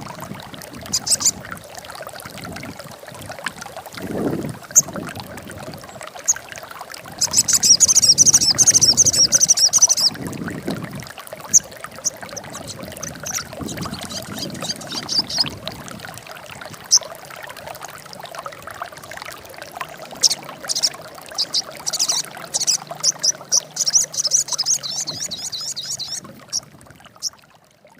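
A sogon songbird singing in bursts of rapid, high chattering trills, over a steady rushing noise. It sings longest and loudest about a quarter of the way in and again in the second half, then fades out near the end.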